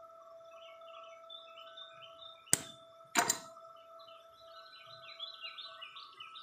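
Two sharp knocks about two-thirds of a second apart, near the middle. Behind them are repeated small bird chirps and a steady faint hum.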